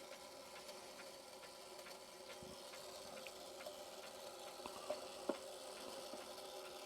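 Herschede clock's chime mechanism running on, a faint steady whir, with a few light clicks a little past the middle.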